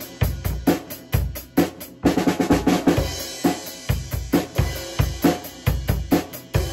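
Yamaha acoustic drum kit played in a steady rock beat, with bass drum and snare strokes in quick succession. A busier run of hits comes about two seconds in.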